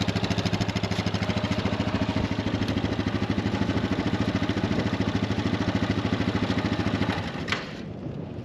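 Yamaha Viking's 686 cc single-cylinder engine idling with a steady pulse, then shut off about seven and a half seconds in with a short click.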